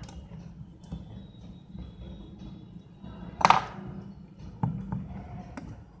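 Small clicks and taps of tweezers and smartphone parts being handled on a workbench, with one louder short clack about halfway through, over a low steady hum.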